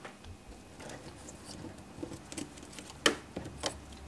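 Soft scattered clicks and taps of fingers handling small plastic and carbon parts on a drone frame, with two sharper clicks about three seconds in.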